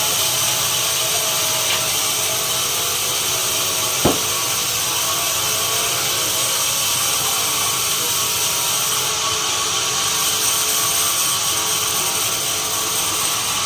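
Sawmill saw running steadily while cutting pine, with one sharp knock about four seconds in.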